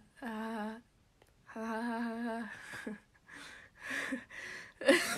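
A young woman's forced, drawn-out fake laugh: two long wavering honk-like held tones, then shorter breathy laughs in the second half, the last one loudest.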